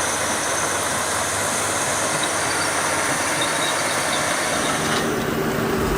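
A heavy vehicle running steadily, a dense mechanical noise; the sound changes abruptly about five seconds in.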